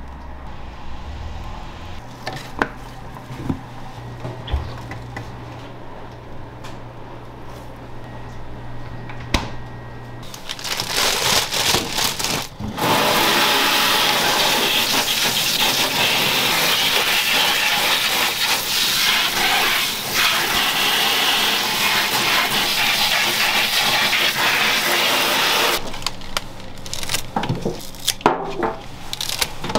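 Tap water running hard into a stainless steel sink over green onions being rinsed by hand: a steady rush that starts about ten seconds in and stops a few seconds before the end. Before it, a low hum with a few light clicks; after it, quick sharp snips of kitchen scissors trimming a green onion.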